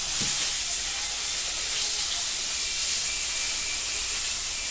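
Food frying in a pan: a steady sizzle.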